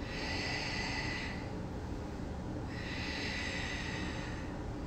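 A person breathing slowly and audibly: two long, hissing breaths, one at the start and another from about three seconds in, over a low steady room rumble.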